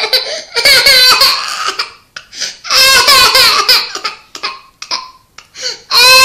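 Toddler crying in sobbing bursts with gasps between them, breaking into a long loud wail near the end, after biting his own tongue while eating.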